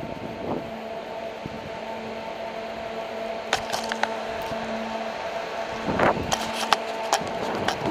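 Inline skate wheels rolling on a concrete parking-garage floor, with sharp clicks and knocks a few times in the second half, over a steady low hum.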